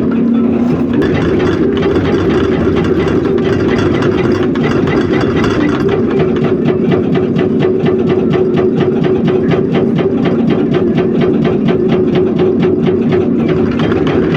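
Diesel engine of a hydraulic excavator running steadily while its hydraulic rock breaker hammers rock, a rapid even pounding of several strikes a second that starts about a second in and stops near the end.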